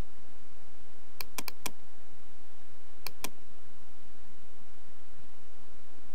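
Computer mouse button clicks, sharp and short: four quick clicks about a second in, a pair about three seconds in, and another pair near the end as the installer's Next button is clicked.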